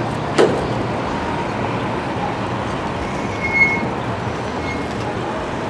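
Steady traffic noise from passing road vehicles, with a sharp click about half a second in and a brief faint high squeal a little past the middle.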